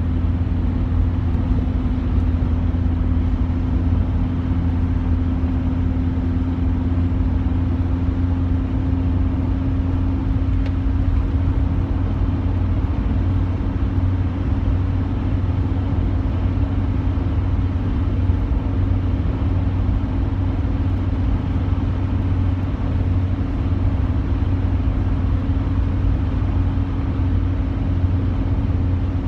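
Diesel car cruising at motorway speed, heard from inside the cabin: a steady low engine drone mixed with tyre and road noise. The engine note rises slightly over the first dozen seconds, then holds.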